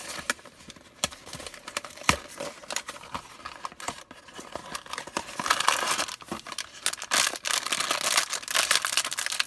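Funko Mystery Minis blind-box packaging being torn and pried open by hand: irregular crackling and crinkling, sparse at first and busier and louder from about halfway through.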